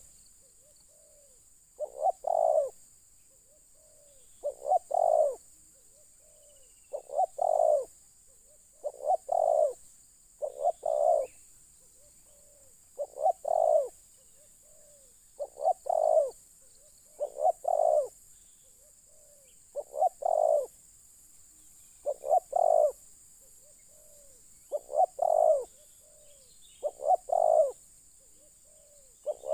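Spotted dove cooing: a repeated phrase of a few short coos leading into a longer, louder one, given about every two to three seconds, about a dozen times.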